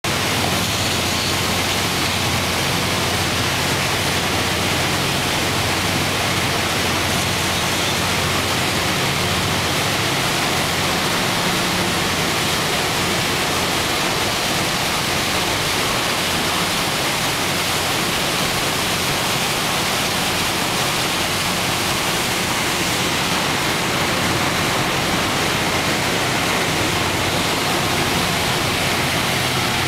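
Steady rushing and splashing of a steamboat's stern paddlewheel churning river water, mixed with the running of its compound steam engine.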